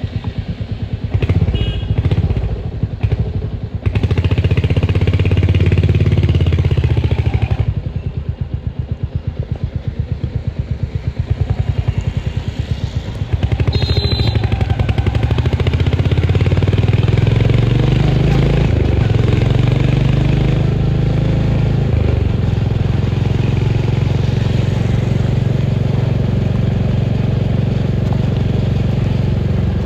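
Royal Enfield Hunter 350's single-cylinder engine with its exhaust thump while riding, the engine note rising and dropping several times with throttle and gear changes.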